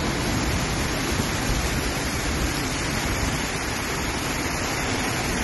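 Heavy rain pouring down in a windstorm, a steady hiss of downpour with an uneven low rumble of strong wind buffeting the phone's microphone.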